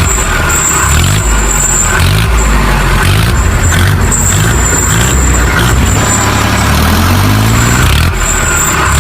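Vehicle engine running with its pitch rising and falling as it revs, alongside a thin high whine that comes and goes.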